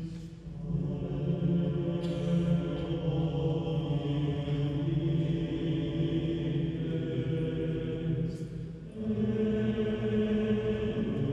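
Mixed choir singing a slow Latin sacred motet in long held chords. The sound dips briefly between phrases just after the start and again about nine seconds in, where a new chord enters.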